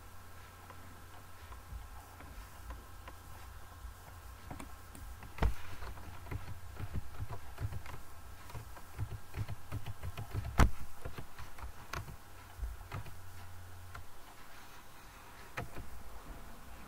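Scattered clicks and taps of a computer keyboard and mouse, two of them louder, over a low steady hum that stops a few seconds before the end.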